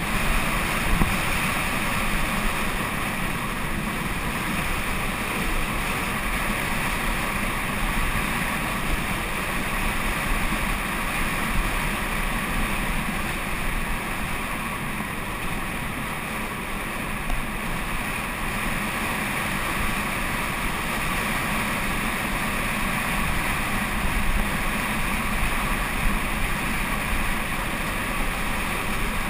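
Steady rush of wind on the microphone mixed with the rumble of tyres rolling over a loose gravel road during a fast downhill run.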